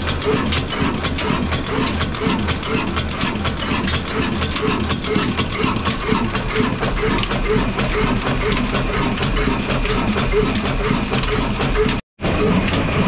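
Old Ruston-type stationary diesel engine running steadily, a dense mechanical clatter with a regular beat about three times a second.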